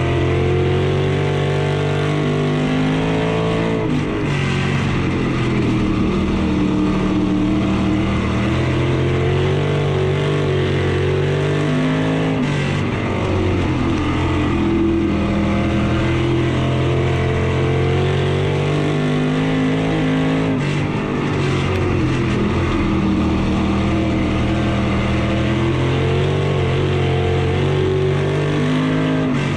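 IMCA stock car's V8 engine running hard at racing speed, heard from inside the cockpit. Its pitch climbs steadily and then dips briefly about every eight seconds, as the driver lifts for each turn of the dirt oval and gets back on the throttle, lap after lap.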